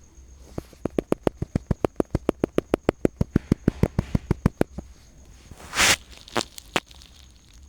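A rapid, even run of sharp clicks, about seven a second for some four seconds, then a short hiss and two more single clicks.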